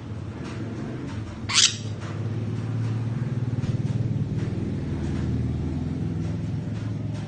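Sun conure giving one short, sharply rising squawk about a second and a half in, over a steady low hum.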